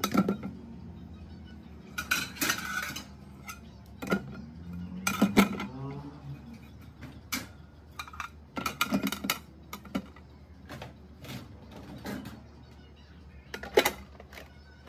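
Dishes clattering and knocking against a plastic dish drying rack as they are set into it, in irregular bursts of clacks with short pauses between. The sharpest single knock comes near the end.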